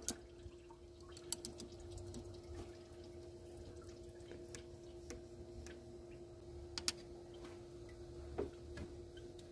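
Faint, scattered clicks and taps of hand tools (pliers and a screwdriver) on the engine's metal parts, heard over a steady faint hum.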